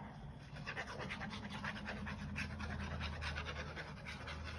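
Fine-tipped plastic glue bottle dragged and squeezed across paper as liquid glue is laid down: a fast run of small scratchy ticks, about eight a second.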